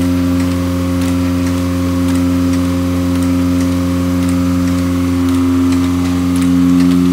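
A 16-pocket Buenaventura gatherer (collator) running at 3600 sets per hour, feeding 8-page folded signatures onto its conveyor: a steady machine hum with regular light clicks.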